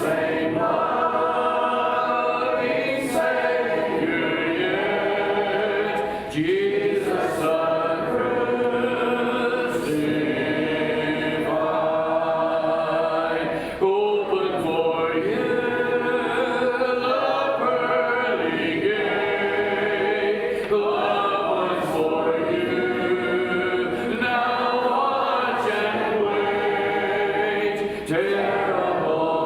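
A church congregation singing a hymn a cappella, many voices together with no instruments. The held notes break briefly between phrases.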